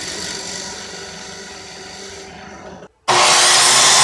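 Electric saw motor running with a steady whine that slowly fades. About three seconds in, after a sudden break, a loud burst of the saw cutting wood.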